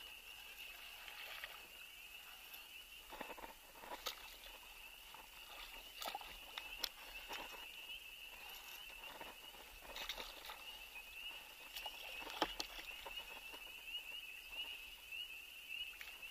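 Spinning reel being cranked and rod handled in a kayak while a hooked largemouth bass is played in: faint scattered clicks and knocks every second or two, over a steady high-pitched whine.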